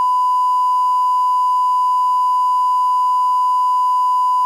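Steady 1 kHz line-up test tone, the reference tone that goes with colour bars: one unbroken, loud, high-pitched tone.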